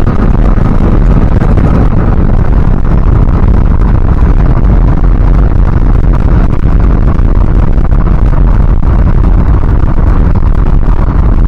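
Steady, loud vehicle noise of a vehicle on the move, heavy in the low end, with wind buffeting the microphone.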